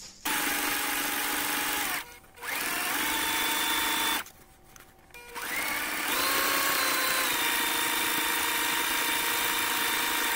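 Electric sewing machine stitching a hem, run on the foot pedal in three spells: it stops briefly about two seconds in and again around four seconds, its motor whine rising in pitch each time it starts again, then runs steadily to the end.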